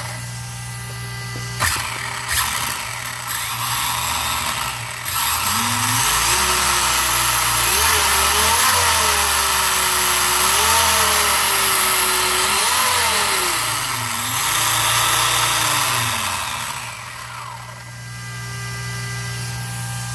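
Brushless motor and drivetrain of a Tekno EB410 1/10 electric buggy on 6S (two 3S packs) revved with the wheels in the air: a whine that climbs and falls over several throttle blips for about ten seconds, starting about five seconds in. A steady low hum runs underneath, and a couple of clicks come in the first few seconds.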